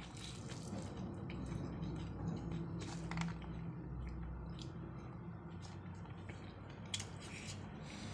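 Fingers mixing and squishing rice and fish curry on a plate, with a few soft clicks, over a steady low hum.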